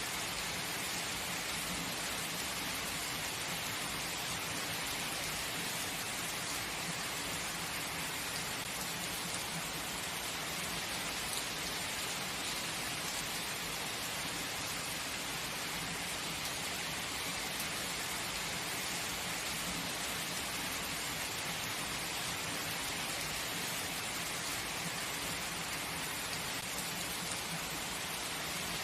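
Heavy rain falling steadily, an even, unbroken hiss of drops with no thunder claps.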